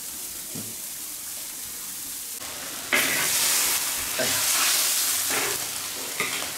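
Pork belly and sauerkraut in a large iron wok, bubbling with a steady hiss, then, about three seconds in, a sudden louder sizzling as a spatula stirs and scrapes the food around the hot wok.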